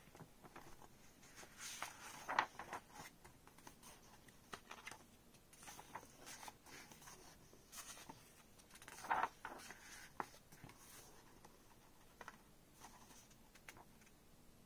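Paper pages of a softcover picture book being turned and handled: faint rustling, with two louder page flips about two seconds in and about nine seconds in.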